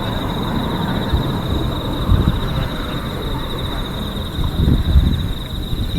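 Low rumble and scattered dull thuds of fireworks bursting, the strongest about two seconds in and again near five seconds. A steady, high, rapidly pulsing chirr runs underneath throughout.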